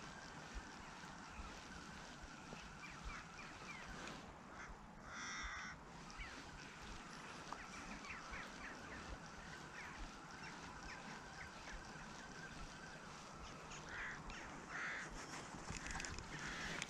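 Waterfowl call: a single honk about five seconds in, and a few shorter calls near the end, over a faint outdoor hiss.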